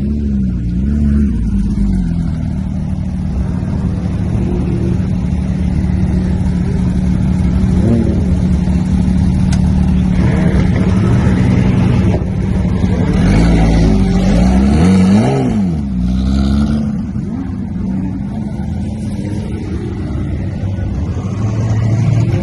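Car engine running loud at a steady idle, with the revs rising and falling in throttle blips about eight seconds in and again in a longer run of revving a few seconds later.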